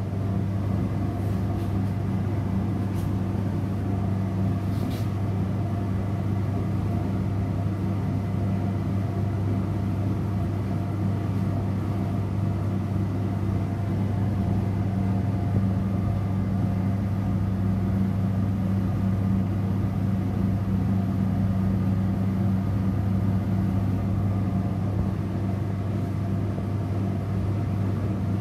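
Laboratory fume hood exhaust fan running with a steady low hum, a few faint clicks sounding in the first five seconds.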